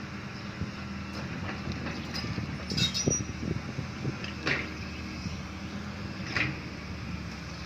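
Excavator's diesel engine running steadily, with a few short sharp metallic sounds from the working arm and bucket about three, four and a half and six seconds in.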